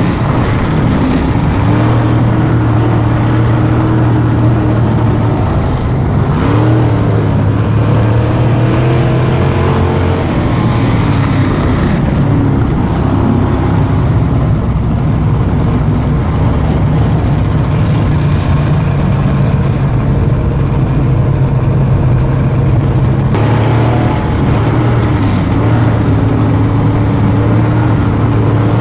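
A car engine running steadily, its pitch wavering only slightly.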